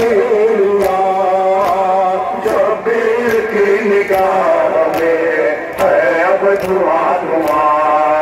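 A male voice chanting a noha (Shia lament) through loudspeaker horns, while the mourners beat their chests in matam, sharp slaps falling in a steady beat a little more than once a second.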